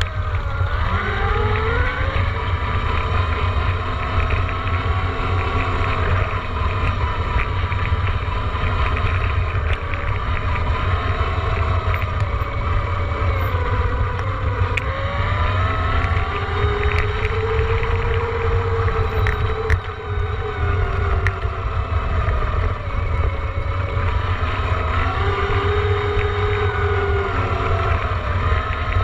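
Electric dirt bike motor whining, its pitch rising and falling with speed, over a heavy low rumble of wind buffeting the microphone.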